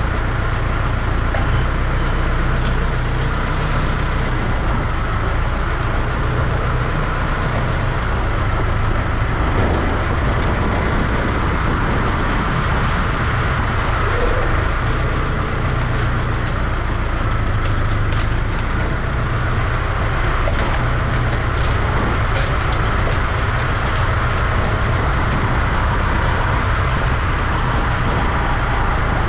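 An engine running steadily with a constant low drone, from a farm vehicle or machine working at an even pace.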